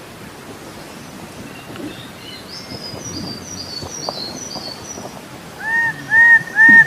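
Bird calls: faint high twittering in the middle, then three loud, identical arched whistled notes near the end, repeating about twice a second and getting louder.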